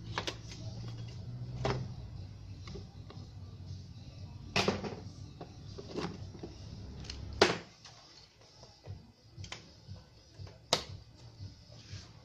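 Scattered clicks and knocks of a TV tuner's metal shield can and circuit board being handled, over a steady low hum that stops with a sharp click about halfway through.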